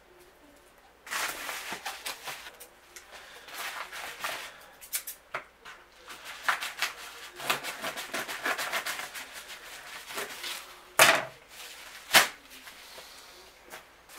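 Yellow padded mailer envelope being cut and torn open by hand, with paper crackling and rustling and many small clicks. Near the end come two sharp snaps about a second apart.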